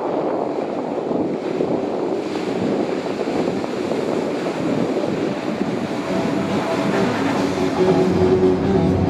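Loud, steady rushing of wind on the microphone mixed with breaking surf. About six seconds in, a steady engine hum joins it and grows louder.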